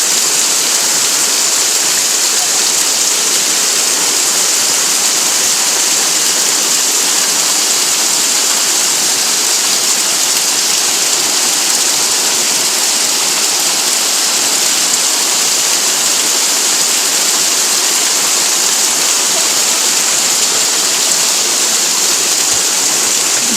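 Heavy rain pouring down in a steady, loud, unbroken hiss.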